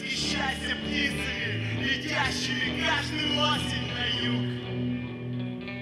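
Rock band playing live: a drum kit with cymbal hits and a bass guitar holding long low notes.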